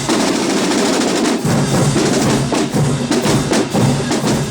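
Marching band drumline playing a loud, fast drum cadence.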